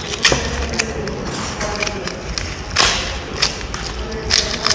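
Adhesive tape being peeled and ripped off a taped-on paper number plate, with paper crinkling, in several short scratchy rips; the longest comes about three seconds in.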